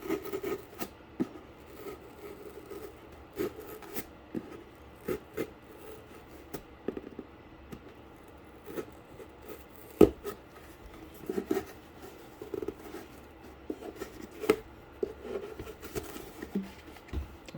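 Doubled-up cardboard being cut by hand in a run of short, irregular scrapes and snips, with one sharp click about ten seconds in.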